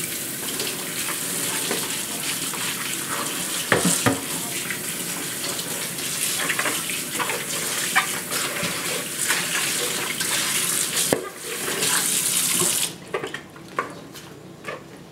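Kitchen tap running steadily into a stainless steel sink while a plastic bowl is rinsed and rubbed under it, with a few knocks. The water shuts off near the end, leaving small drips and clicks.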